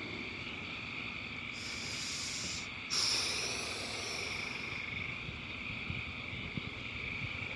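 Steady high-pitched chorus of calling frogs. About three seconds in, a rushing hiss swells suddenly and fades away over the next two seconds.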